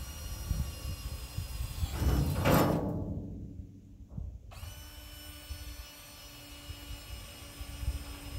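Power drill running briefly and winding down as it bores a drainage hole through a galvanized steel livestock trough, the pitch falling as it stops. A low, uneven thumping rumble runs underneath throughout.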